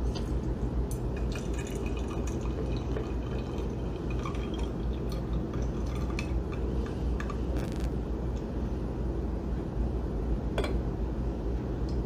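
Tea pouring in a steady stream from a clay teapot into a glass pitcher, liquid splashing into glass. There is a single light clink about ten and a half seconds in.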